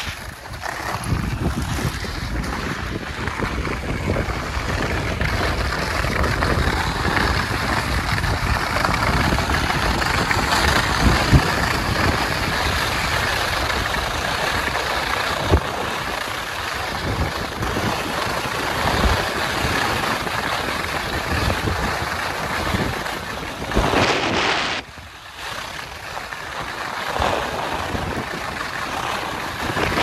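Rush of wind over the microphone and the hiss and scrape of alpine skis carving on hard groomed snow during a fast downhill run. A few sharp knocks break in, and the rush eases briefly late on.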